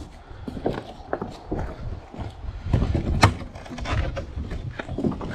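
Plastic shrink wrap and cardboard packing being handled, rustling and crinkling with scattered clicks and a sharp knock a little past the middle.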